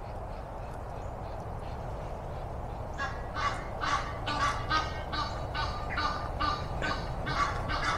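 A bird honking over and over, about two to three calls a second, starting about three seconds in, over a steady outdoor background hum.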